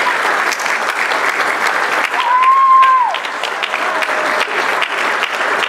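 Audience applauding, many hands clapping steadily. About two seconds in, a single whistle from the crowd holds one pitch for about a second and then drops away.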